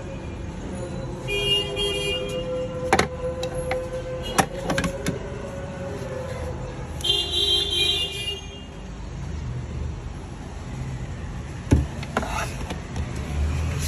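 Hard plastic push-up handles and board panels clicking and knocking as they are handled, a handful of sharp knocks in all. Street traffic runs underneath, and a vehicle horn sounds twice.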